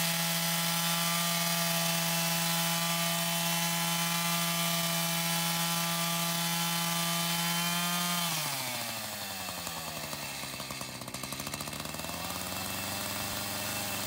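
Shindaiwa 59cc two-stroke chainsaw running at high revs with a steady note. About eight seconds in, the bar tip bites into the log to start a lengthwise milling cut: the engine note drops under the load and wavers, and the rasp of the chain cutting wood comes in.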